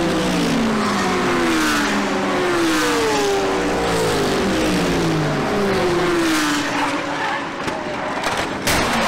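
GT3 race cars passing one after another at speed, each engine note falling in pitch as it goes by. Near the end comes a sharp crash impact as a car slams into the wreckage and debris.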